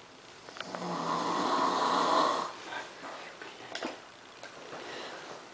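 One loud snore lasting about two seconds, starting about half a second in, followed by a few faint clicks.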